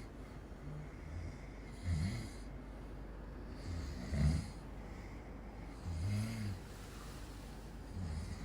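A man snoring in his sleep, a low-pitched snore about every two seconds.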